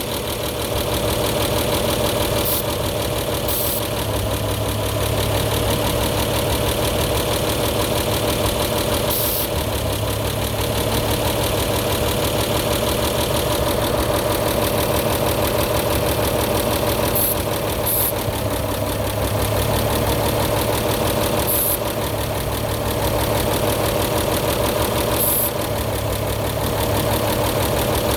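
A 1930 Chevrolet's overhead-valve inline-six engine idles steadily. Several short hisses of aerosol carb cleaner are sprayed around the intake connections to find a vacuum leak, since a change in idle would mark where the engine sucks it in.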